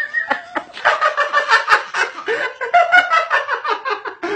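Hearty laughter from a man and a toddler, in rapid, repeated bursts.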